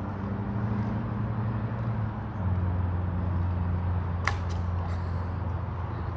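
Playground zip wire trolley running along its steel cable: a steady low hum that drops a little in pitch about two seconds in, with a sharp knock about four seconds in as the ride reaches the far end.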